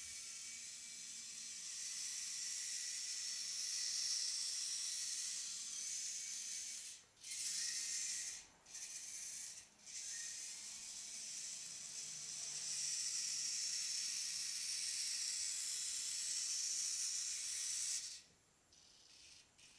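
Small wheeled robot's drive motors whirring as it drives, a high hissing whir that cuts out briefly three times midway and stops about two seconds before the end.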